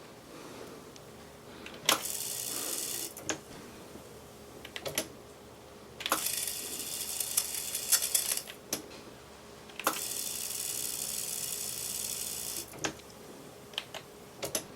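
Studer A710 cassette deck's tape transport being worked: sharp mechanical clicks as its controls engage and release, and three spells of high whirring as the tape winds fast, about one, two and a half and three seconds long, each starting and stopping on a click.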